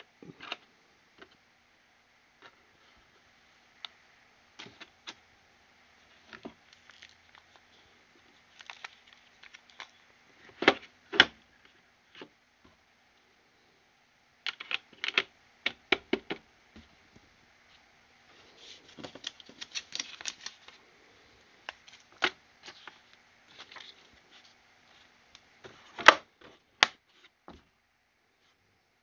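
Scattered clicks and knocks of Molecat mole trap parts being handled and set into their fitted hard plastic carrying case, with a short stretch of rustling about twenty seconds in. The loudest knocks come about eleven seconds in and near the end, as the case is shut.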